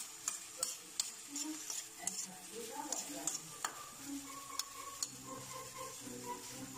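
Jungle snails in their shells being stirred with a metal spoon in a wok of hot oil with garlic and onion: a steady sizzle with irregular clicks and scrapes as the spoon knocks against the shells and the pan.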